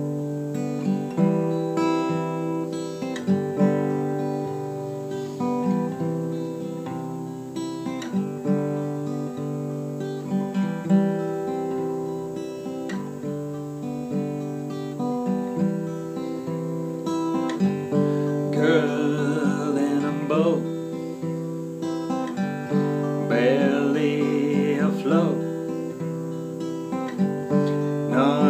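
Steel-string acoustic guitar played solo, a picked and strummed chord pattern in a steady rhythm, as the instrumental intro to a song.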